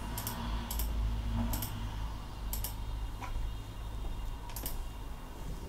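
A handful of short, sharp clicks at a computer, irregularly spaced about half a second to two seconds apart, as wallpaper thumbnails are selected one after another. Under them runs a low, steady hum.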